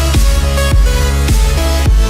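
Loud electronic outro music with a heavy bass line and a steady beat.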